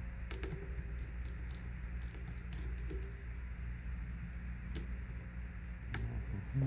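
Scattered light clicks and ticks of a small precision screwdriver working at the screws of a smartphone's charging port, over a steady low hum.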